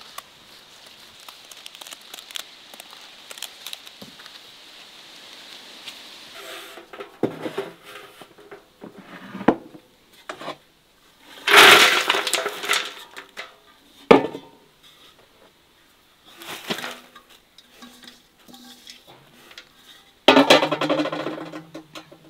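Shredded cabbage and grated carrot tipped from an enamel bowl into a large metal basin: the vegetables slide and rustle onto the metal, and the bowl clanks against the rim. The loudest pours come about halfway through and near the end, with a sharp knock between them, after a quieter opening.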